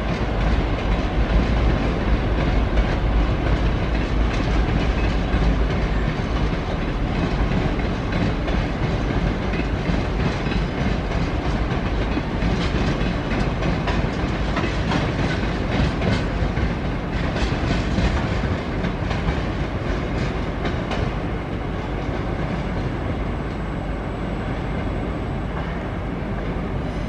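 Spirit of the Outback long-distance passenger train rolling past, wheels clicking over the rail joints. The sound eases slightly in the last few seconds as the rear carriages pull away.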